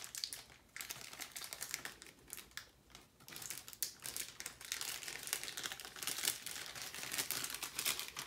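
Clear plastic MRE beverage bag crinkling and crackling as it is pulled open and handled, in irregular bursts with a brief lull about three seconds in.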